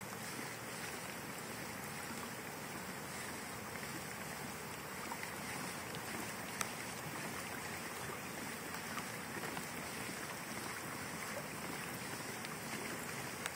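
Steady hiss of water moving around a kayak on a river, with one sharp click a little past halfway.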